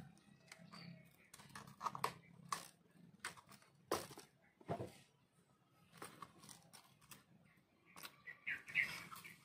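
Scattered light taps, knocks and rubbing as a stitched cowhide machete sheath and the machete are handled on a wooden workbench.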